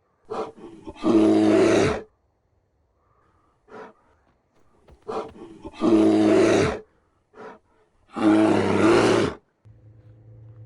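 A man retching: three loud, drawn-out heaves about a second each, with short gasps and coughs between them. He puts his nausea down to altitude sickness. A steady low hum starts near the end.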